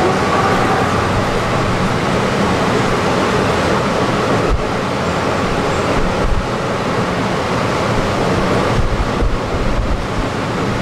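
Heritage tram running along its tracks, heard from inside the passenger car: a steady rumble of wheels on rails and running gear, with a couple of low knocks a few seconds in.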